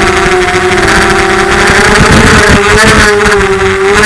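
FPV quadcopter's brushless motors whining, the pitch wavering up and down as the throttle changes.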